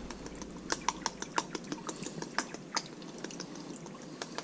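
Soy sauce poured from a bottle onto cubes of raw shark meat in a ceramic dish, falling in drips and dribbles that make a run of small, irregular wet ticks.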